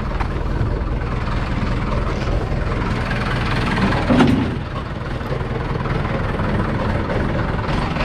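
Diesel engine idling steadily with a low rumble, with a single metallic clunk about four seconds in.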